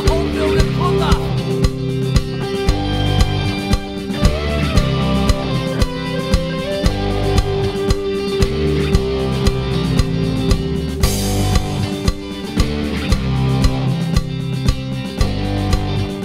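Background music: an instrumental passage of a song with drum kit and guitar over a steady beat.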